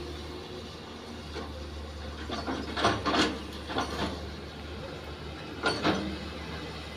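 Hydraulic excavators working: a steady low engine drone, with a run of metallic clanks and scrapes from the digging gear about halfway through and two more near the end.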